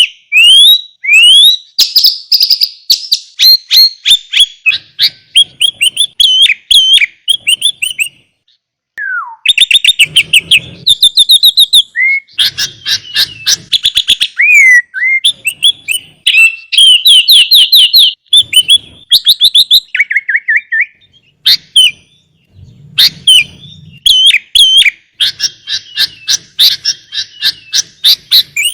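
Sooty-headed bulbul (kutilang) singing a long, varied song packed with mimicked filler phrases: clear whistles, rapid runs of repeated chirps and trills, broken by a couple of short pauses.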